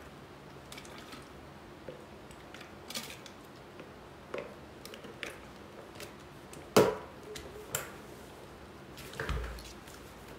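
Quiet room hiss with scattered faint clicks and small knocks, a sharper click about seven seconds in and a low thump a couple of seconds later.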